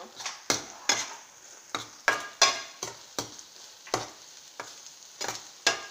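Metal utensil scraping and knocking against a stainless steel frying pan as egg is stirred and broken up in hot oil, in uneven strokes about two a second, over a light sizzle of frying.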